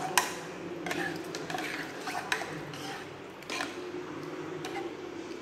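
Steel ladle stirring thick spinach gravy with grated coconut in a pressure cooker pot: wet squelching with several sharp clinks of the ladle against the pot, the loudest just after the start.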